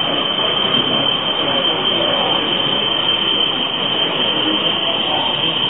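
DCC sound-fitted model Class 37 diesel locomotive playing its engine sound through an onboard speaker as it runs with a train of container wagons. The sound is a steady, continuous diesel running noise with a hum of exhibition-hall background beneath it.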